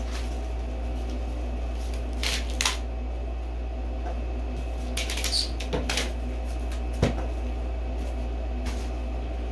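Scattered rustling and light clicks of hard plastic graded-comic slabs and cardboard being handled and set down on a wooden table, with one sharp click about seven seconds in. A steady low hum runs underneath.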